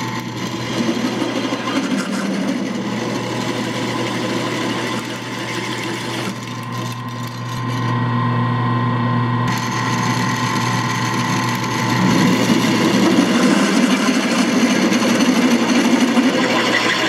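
Drill press running with a half-inch twist bit boring through steel angle iron: a steady motor hum with the grinding and scraping of the bit cutting the metal.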